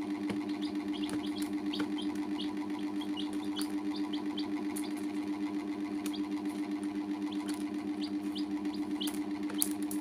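Baby chicks peeping: short high chirps a few times a second. Under them runs a steady low hum with a fast pulse.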